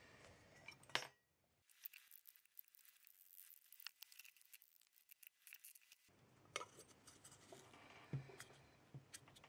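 Faint scraping and small clinks as a thin blade scrapes charcoal ink paste from a bowl into a small glass jar, then a low knock about eight seconds in as the lid is pressed onto the jar.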